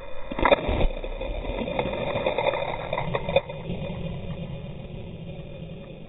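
Rush of a breaking ocean wave heard close up from inside the curl. It swells within the first half second, with a few sharp knocks in the first few seconds, then settles into a steady rush that slowly fades.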